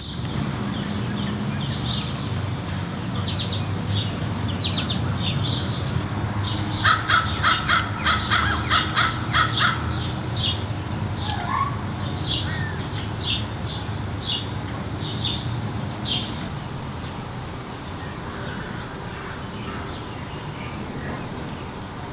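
A series of bird calls over a steady low hum. A run of loud, evenly repeated calls, about two a second, comes about a third of the way in, and scattered calls follow until past the middle.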